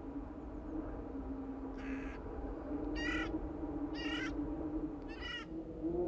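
A crow cawing four times in short harsh calls about a second apart, over a steady low hum.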